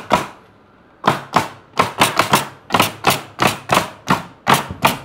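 Coil nail gun firing nails one after another into pallet deck boards: about a dozen sharp shots, roughly three a second, after a pause of about a second near the start.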